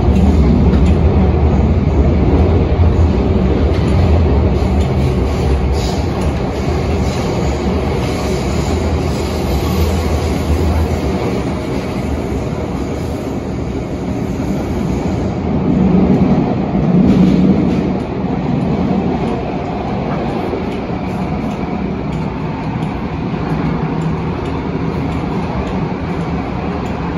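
CAF-built MTR Tung Chung line train running, heard from inside the passenger car: a steady rumble of wheels on rail with a low hum that fades about eleven seconds in, and a brief swell in the noise a few seconds later.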